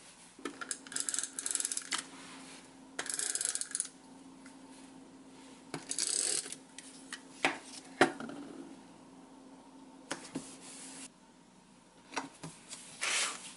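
Clear plastic tape runner drawn across paper in several short rasping strokes, with sharp clicks and taps of plastic and paper on a desk as a journal is worked on. The sharpest click comes about eight seconds in.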